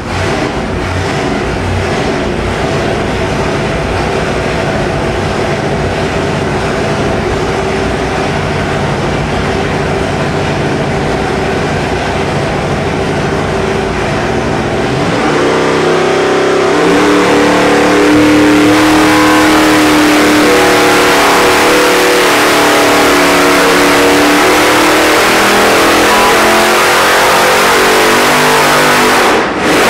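Roots-supercharged 572 cubic-inch big-block Chevy V8 running on an engine dyno at 6 psi of boost. It holds steady at about 1,500 rpm, then about halfway through goes to full throttle and pulls up under load past 5,600 rpm. It cuts off abruptly near the end.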